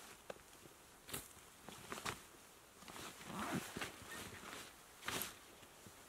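A backpack being opened and unpacked: fabric rustling and handling noise, with a few sharp clicks spread through and a longer rustle about halfway.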